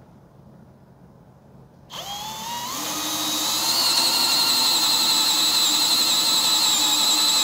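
Bosch GSB 18V-50 brushless cordless drill set to its low-speed, high-torque gear, driving a large wood auger bit into a wooden post. It starts about two seconds in, its whine rises as it gets up to speed and then holds steady as the bit bores through the wood without stalling.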